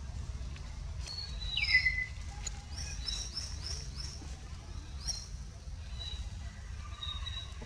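Birds chirping, mostly short rising chirps repeated a few times a second, with one louder call falling in pitch about two seconds in, over a steady low rumble.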